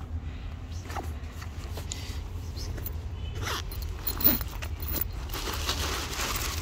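Dry fallen leaves rustling and crunching under footsteps, with a few short scuffs and a rustling patch near the end, over a steady low rumble of wind on the microphone.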